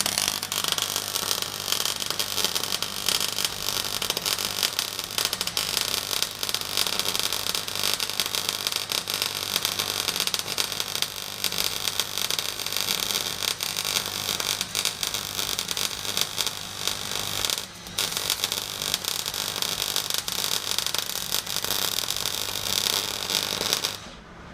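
Arc welding on steel: a continuous hissing, crackling noise over a low steady hum, with a short break about 18 seconds in, cutting off just before the end.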